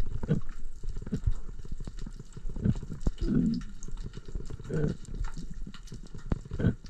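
Underwater sound recorded by a diver's camera: a steady crackle of small clicks, with low bubbling gurgles a few times, about three and a half and five seconds in.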